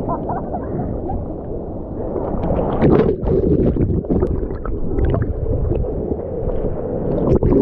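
Ocean surf churning and gurgling right against a camera at the waterline, muffled whenever the lens dips into the waves, with sharper splashes about three seconds in and again just before the end.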